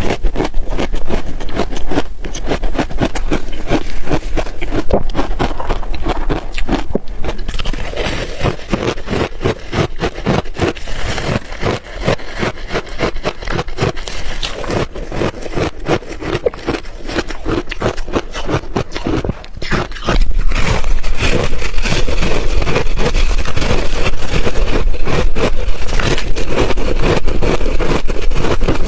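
Ice chunks being bitten and chewed close to the microphone: a dense, irregular run of crunching and crackling that grows louder about two-thirds of the way through.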